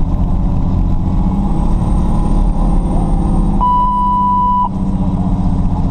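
2003 Pierce Dash fire truck's diesel engine and road noise while driving at steady speed. Just past the middle, a single steady beep about a second long, a radio alert tone ahead of a dispatch message.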